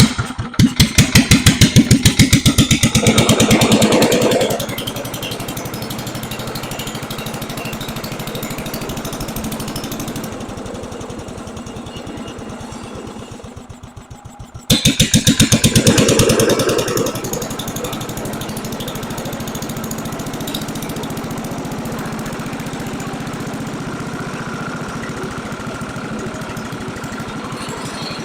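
Petter PA1 single-cylinder petrol engine running on its first start after restoration. It runs fast and loud for the first few seconds, then settles. From about ten seconds in it slows and sags as if about to stall, then picks up sharply at about fifteen seconds and settles again into a steady run.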